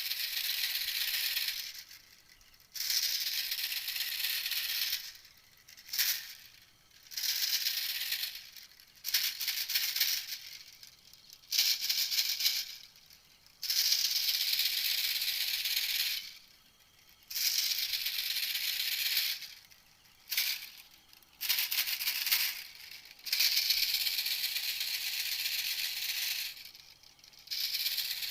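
Recorded call of a small bird, the one the Thai title calls 'tiw met taeng', played on a loop as a hunting lure: high, dry, rattling chatter in bursts of a second or two, repeating with short gaps.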